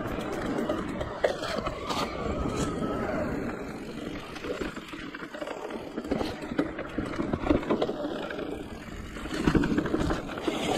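Giant Reign E+ electric mountain bike riding along dirt forest singletrack: steady tyre rumble over the trail, with irregular rattling clicks from the bike.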